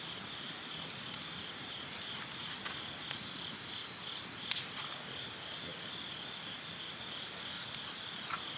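A steady, high-pitched chorus of insects chirping, with a sharp click about four and a half seconds in.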